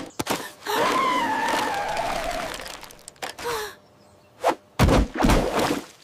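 A cartoon character's long cry sliding down in pitch, then a sharp hit and loud, deep splashes of a vehicle plunging into mud about four and a half seconds in.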